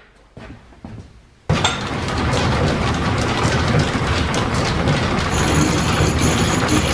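Line-shaft-driven milling machine, turned by a leather flat belt, starting up with a slitting saw on its arbor: a steady mechanical clatter of rapid clicks that comes in suddenly about a second and a half in. A thin high ringing joins near the end. The saw is set up to cut the 45-degree split in a piston ring.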